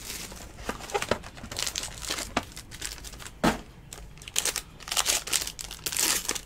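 Hands opening a trading-card box and crinkling its foil pack wrapper: irregular crackles and rustles, with one sharp crack about three and a half seconds in and denser crinkling near the end.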